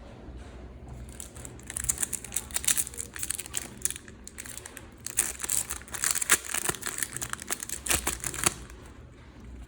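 Crinkling and tearing of a trading-card packet wrapper as a pack of Match Attax cards is opened: dense crackling from about a second in that stops shortly before the end.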